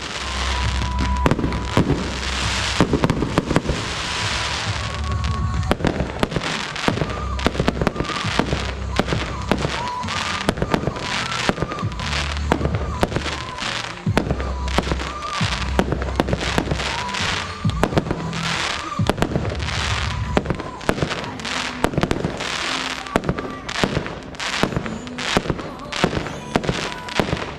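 Fireworks display: shells and cakes bursting in rapid, near-continuous succession, many sharp reports and crackles, set over music with a heavy bass line.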